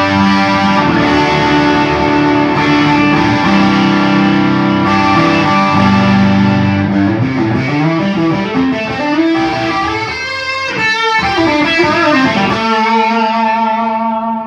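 PRS electric guitar played through an Orange Micro Dark Terror tube amp head, with a Fender 12AX7 in the preamp, and a Vox 2x12 cabinet. Held chords, then a busier passage with notes bending up and down, and a final chord left to ring out near the end.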